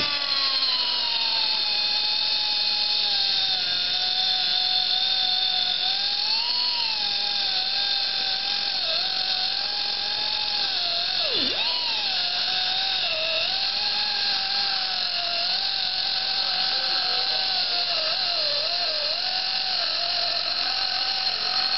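Handheld cutoff tool's abrasive wheel grinding through a steel motor shaft: a steady high whine that drops in pitch as the wheel bites at the start, then wavers and sags under load, with one sharp deep dip about halfway through.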